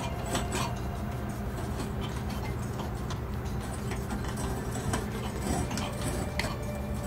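Insulated electrical wires being handled and pushed into a metal junction box, giving scattered light clicks and rustles over a steady low hum.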